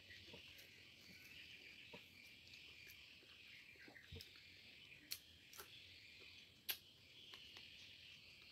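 Near silence: a faint steady high insect drone, with a few soft clicks and taps of eating, the loudest about five seconds and nearly seven seconds in.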